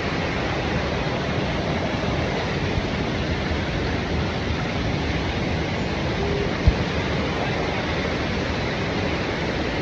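Steady, even rushing noise with no break, and one brief low thump about two-thirds of the way through.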